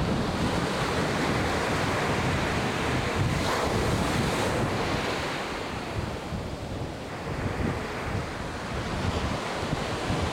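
Ocean surf washing and breaking, with wind rumbling on the microphone.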